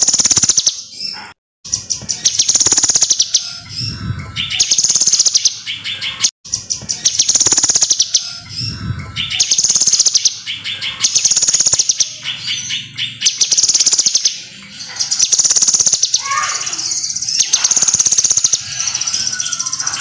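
Caged kinoi songbird singing in full voice: a high, rapid trilling phrase repeated over and over, about every one and a half to two seconds, with two brief dropouts in the first seven seconds.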